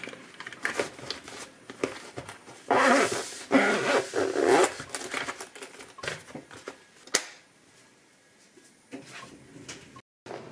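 Zipper on a fabric insulated lunch bag pulled shut in two long strokes, amid small clicks and knocks of handling.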